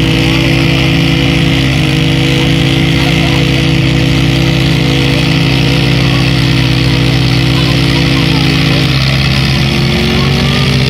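The engines of an MTZ-80 tractor and a Volkswagen Touareg running hard under heavy load as they pull against each other in a tug of war. The tractor's wheels spin in the dirt. About nine seconds in, the engine note drops briefly, then rises again.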